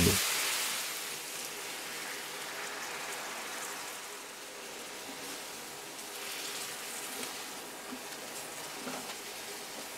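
Bean broth hitting a hot frying pan of fried onion and tomato paste: a loud sizzling hiss at the start that dies down within about a second into a steady, softer sizzle of the simmering sauce.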